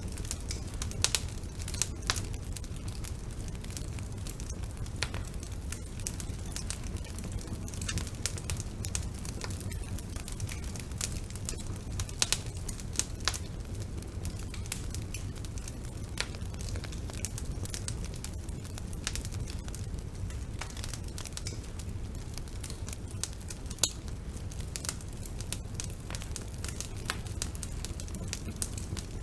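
Wood fire burning in a fireplace: frequent sharp crackles and pops over a steady low rumble of the flames, with a few louder pops scattered through.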